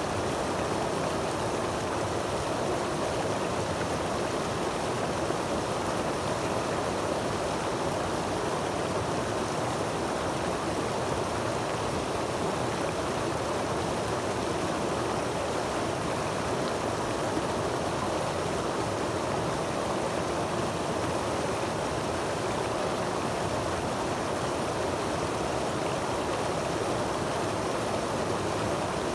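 Creek water rushing over a small rocky cascade into a pool: a steady splashing roar that does not change.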